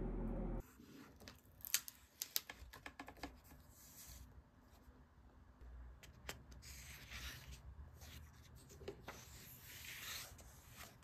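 Paper pages of a hardcover book being turned by hand: faint rustling and soft paper clicks. A steady hum cuts off suddenly about half a second in.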